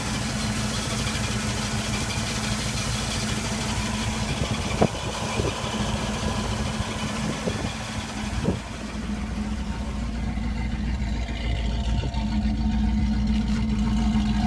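1976 Pontiac Trans Am's 400 cubic-inch (6.6 L) V8 idling steadily, with a muscle-car sound. A couple of light knocks come midway, and the engine note grows deeper and a little louder in the last few seconds.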